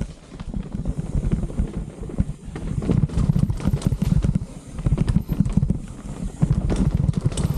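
Rocky Mountain Altitude A70 mountain bike rattling and thudding over a rough dirt trail at speed, a dense, uneven run of knocks.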